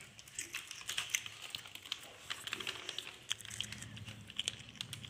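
Plastic snack packet crinkling as a child handles it close by, with irregular crackling clicks, over a faint low hum.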